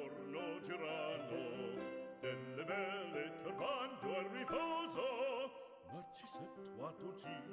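Background music: an opera aria, a trained voice singing with wide vibrato over instrumental accompaniment.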